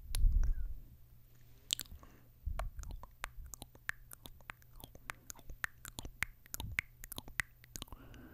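Close-miked kissing and lip sounds: a quick, irregular run of wet smooches and lip smacks, with a couple of low thumps on the microphone, the loudest right at the start.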